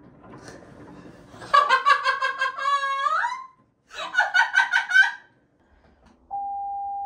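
A woman laughing hard in two bursts. Near the end a single steady pure tone starts, a sine-wave control tone played through a waterproof speaker to steer the submarine.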